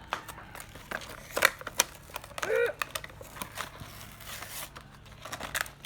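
Plastic toy packaging being handled and pulled open: irregular crinkling, rustling and sharp clicks, with a brief murmur from the person about halfway through.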